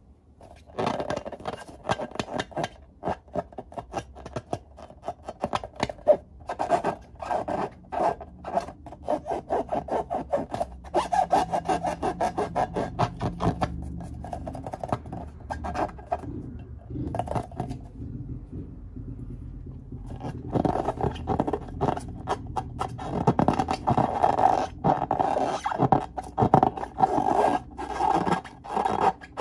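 Hands rubbing and squeezing filled latex balloons: rapid, continuous rubbing strokes on the rubber, easing off for a few seconds about two-thirds of the way through before picking up again.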